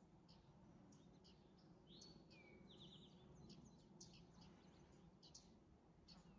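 Faint birdsong: repeated short high chirps, with a brief whistle and a quick trill about two to three seconds in, over a low steady hum.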